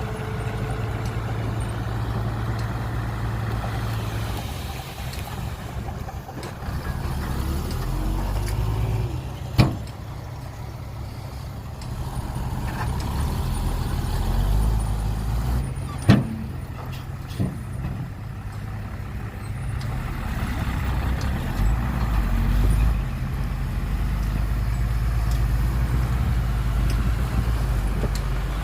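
Heavy diesel engines of earthmoving machinery and a dump truck running, the low rumble rising and falling in level. Two sharp knocks about ten and sixteen seconds in, the second the louder.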